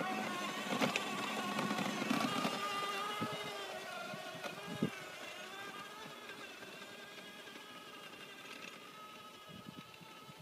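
Child-sized ride-on quad's motor running with a steady whine, fading as it drives away through the snow, with a couple of short knocks near the middle.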